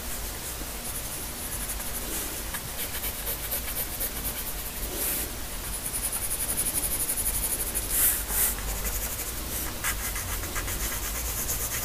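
Pencil shading on drawing paper: quick back-and-forth hatching strokes, a dry scratchy rubbing, with a louder run of strokes about eight seconds in.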